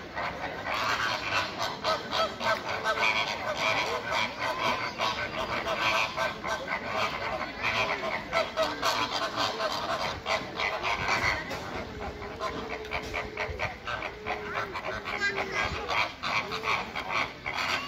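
A flock of flamingos calling together: many overlapping honking calls in a dense, unbroken chatter.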